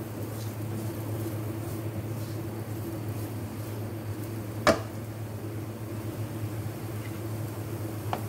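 Steady low mechanical hum, with chopped green capsicum being stirred in a non-stick wok with a spatula. One sharp knock of the spatula against the pan about halfway through, and two light taps near the end.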